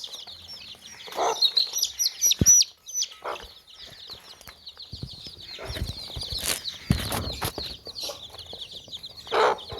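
A brood of baby chicks peeping nonstop in high, rapid chirps, with a lower hen-like cluck now and then. Rustling and knocks from the birds moving about come in the middle.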